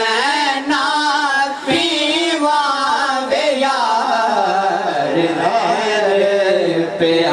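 Men singing a Punjabi Sufi kalam together in long, wavering, unbroken melodic lines.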